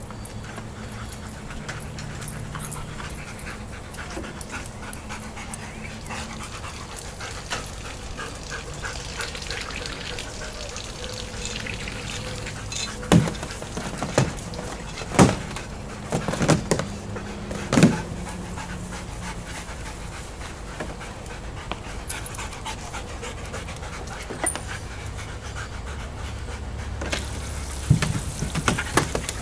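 A dog panting steadily, with a handful of sharp, loud knocks about halfway through and a couple more near the end.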